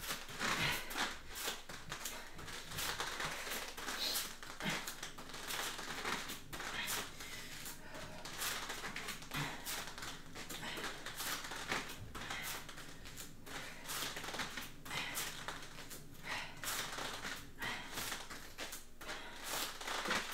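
A person exercising hard: irregular breaths mixed with short taps and scuffs of bare feet on foam floor mats, in a small room.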